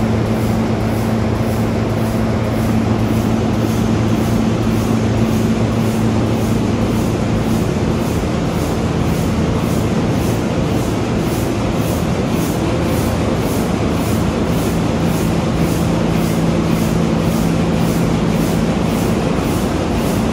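B&W 2000 eight-cylinder double-acting two-stroke diesel engine running steadily, a loud, even low hum with a regular beat about twice a second.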